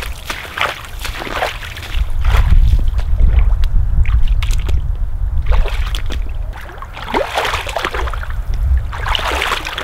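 Rubber boots splashing and squelching step by step through flooded marsh grass, then the raccoon carcass sloshed about in a shallow creek near the end as it is rinsed. A heavy low rumble runs through the middle and is the loudest sound.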